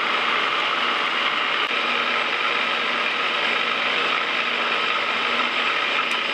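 Metal lathe running steadily under power with its threading gear train engaged, an even mechanical whirr, while a single-point tool takes a pass cutting a left-hand modified square thread on a long feed screw.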